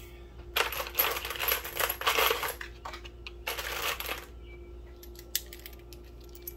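Loose 7.62×39 rifle cartridges clinking and rattling against each other in a plastic box as a hand digs through them. There are two bursts, the first about two seconds long and the second shorter. Near the end come a few single clicks as cartridges are handled in the hand.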